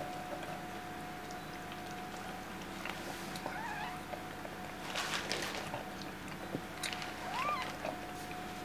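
Two brief, high, mewing squeaks from a Lhasa Apso or her newborn puppy, about three and a half and seven and a half seconds in, with rustling and handling sounds around the middle over a steady faint hum.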